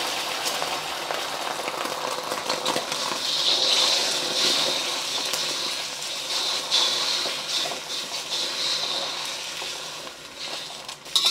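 Beaten eggs sizzling in hot oil in a wok, with occasional clicks and scrapes of chopsticks stirring them against the metal. The sizzle dies down near the end as the eggs set.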